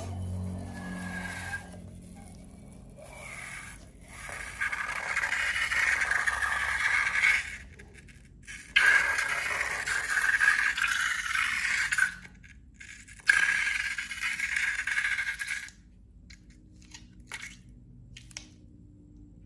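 Scraping in three long stretches of a few seconds each, with short pauses between them.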